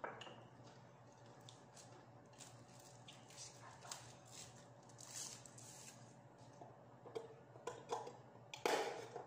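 Faint rustling and light clicks of a paper-wrapped drinking straw being unwrapped and pushed into a soft-drink cup, with a louder scratchy burst near the end.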